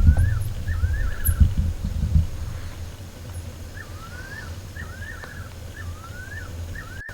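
An animal's repeated call, each a quick dip and rise in pitch: twice near the start, then four times in a row in the second half. Low rumbles and thumps run under the first two seconds.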